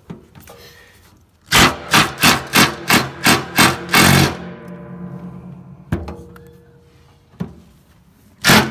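Cordless impact driver with a flathead bit hammering at a rusted-in screw on a steel tank's access plate: a run of loud rattling impacts, pulsing about three times a second for about three seconds. A few light clicks follow, then a sharp knock near the end.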